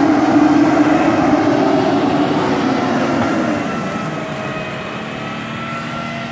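Lada Niva's engine revving hard under load as it drives out through mud, then easing off to a lower, quieter run about three and a half seconds in.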